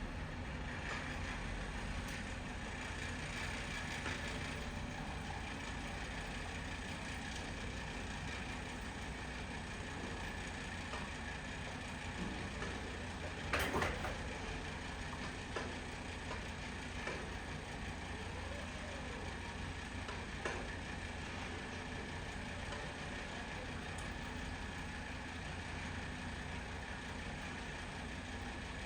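A heavy machine's engine running steadily with a low rumble, with one sharp knock about halfway through and a few fainter clicks later.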